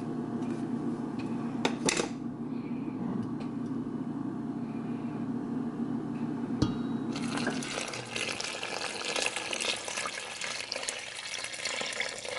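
Water poured from a pitcher into a bowl of flour: a steady splashing pour that starts about seven seconds in. Before it there is a low steady hum and a few short knocks.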